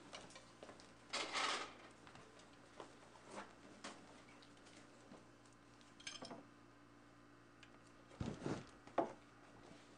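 Kitchen utensils clinking and scraping against a ceramic plate and bowls while tacos are filled, a few scattered knocks and clatters with quiet between; a cluster of duller knocks and a sharp click come near the end.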